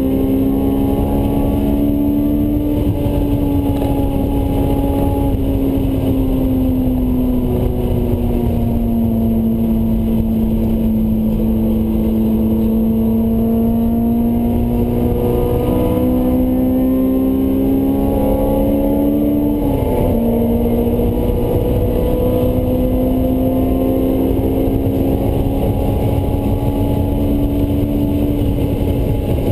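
Honda S2000's engine through a Mugen exhaust, heard from inside the cabin at track speed. Its pitch sinks and rises with the throttle, climbs, then drops sharply about twenty seconds in. Steady road and wind noise runs underneath.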